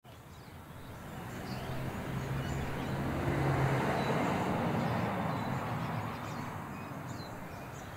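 Outdoor street ambience: a wash of noise that swells to a peak about halfway through and then eases off, with a steady low hum for a couple of seconds and a few faint bird chirps.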